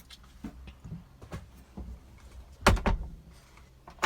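Light clicks and knocks, then two loud thuds close together about two and a half seconds in and a sharp click near the end.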